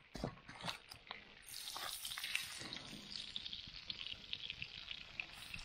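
A few clicks and knocks of cookware, then from about a second and a half in trout sizzling in a hot pan, a steady frying noise full of small crackles.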